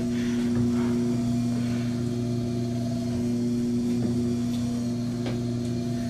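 Steady low electrical hum made of a few constant tones, with a couple of faint ticks.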